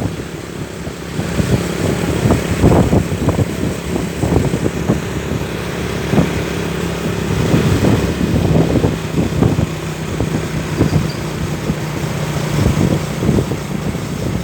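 A road vehicle's engine running with a steady low hum under uneven, rumbling traffic noise.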